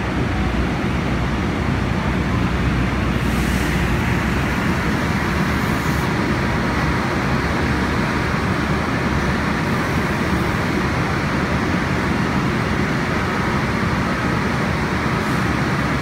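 Diesel engines of road-construction machinery running steadily, including a John Deere backhoe loader moving slowly over the roadway. A few short hisses come and go over the engine noise.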